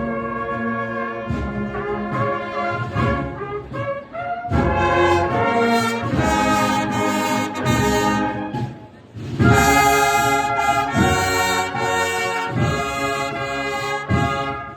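A cornet-and-drum band (banda de cornetas y tambores) playing a march: massed cornets holding chords over drums. The band drops away briefly about nine seconds in, then comes back louder.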